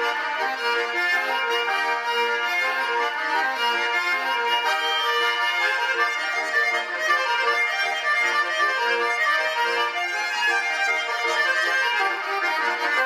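Russian garmon (button accordion) playing a traditional village tune (naigrysh): a melody over repeated chords in a steady, even rhythm.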